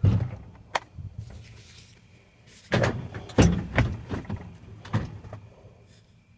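A series of separate knocks and clunks from working at the truck, about five spread over five seconds, with no engine running or cranking.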